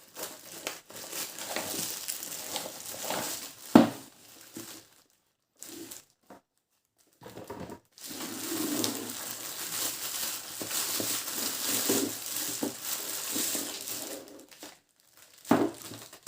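Cardboard and plastic packaging being handled as an immersion water heater is unboxed: rustling and crinkling in two long stretches, with one sharp knock about four seconds in.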